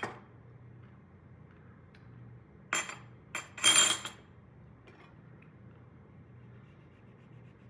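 A spoon clinking and scraping against a container while scooping out passion fruit pulp. There is a clink at the start and two more around three seconds in, then a longer, louder scrape about four seconds in.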